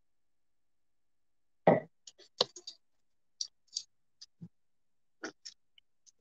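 Soft, scattered clicks and small knocks close to the microphone, with a brief low sound about two seconds in; none of it is speech.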